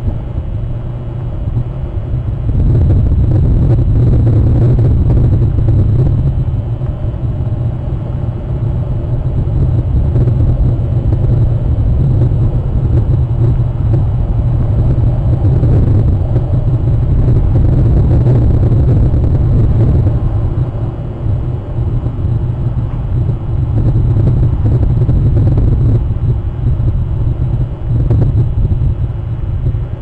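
Steady low rumble of wind and surf picked up by an outdoor shoreline webcam's microphone. It swells louder a couple of seconds in and eases briefly now and then.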